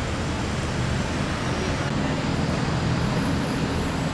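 Steady road traffic noise: motor vehicles moving along a roadway, mostly low engine and tyre noise.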